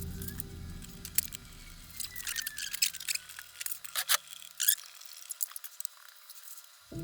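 Background music fading out on a held low note, with scattered sharp clicks and ticks over it; the music comes back in right at the end.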